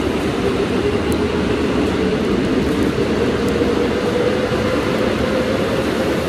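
Subway train pulling out of the station behind platform screen doors: a steady rumble and hiss of wheels on rail, with a motor whine that slowly rises in pitch as the train accelerates.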